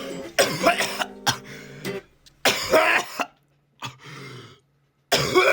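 A person coughing in a fit of harsh coughs and throat clearing, several in a row with a longer, heavier cough about two and a half seconds in and another just before the end. A strummed acoustic guitar chord rings out underneath and stops about two seconds in.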